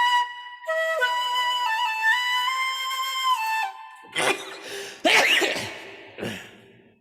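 A flute melody moving in steps between held notes, ending about three and a half seconds in. It is followed by a few short, noisy, breathy bursts, the loudest about five seconds in.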